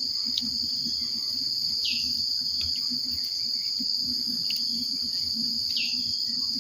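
Steady high-pitched drone of insects, with two short downward-sliding bird chirps, one about two seconds in and one near the end.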